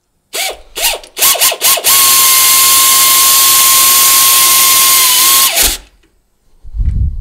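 Pneumatic air ratchet run in several short blips, then held on for about three and a half seconds with a steady whine, driving a rear brake caliper bolt in until it tightens down and the tool stops. A short low thump comes near the end.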